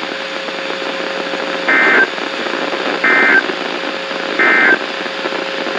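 Emergency Alert System end-of-message signal on NOAA Weather Radio: three short bursts of warbling digital SAME data tones, about a second and a half apart, over steady radio hiss, marking the end of the tornado warning broadcast.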